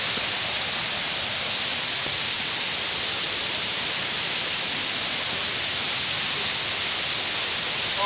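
Waterfall rushing: a steady, even hiss of falling water that stays level throughout.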